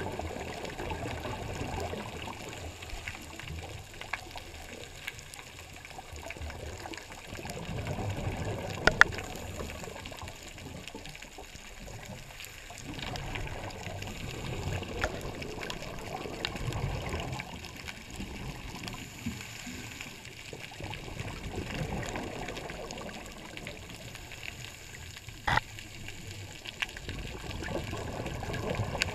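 Underwater scuba sound through a camera housing: a diver's exhaled regulator bubbles gurgle in surges every several seconds, with a sharp click about nine seconds in and another near the end.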